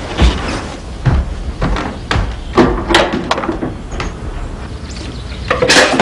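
A series of short knocks and clatters, with a louder, noisier burst near the end.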